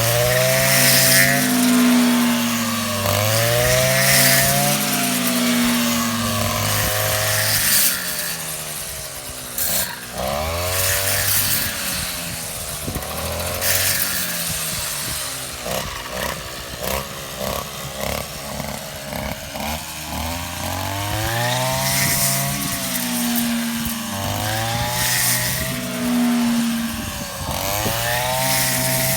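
Small engine of a rice-cutting machine running hard, its pitch rising and falling repeatedly with load.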